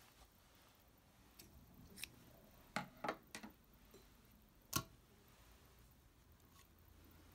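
Scattered light clicks from hands handling the thread and parts of a vintage Singer 66K sewing machine while it stands still. There is a quick cluster of three about three seconds in and a sharper single click a little before five seconds.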